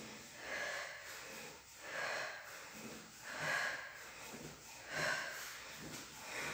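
A person breathing hard in rhythm with sit-ups: a forceful breath on each repetition, about every second and a half.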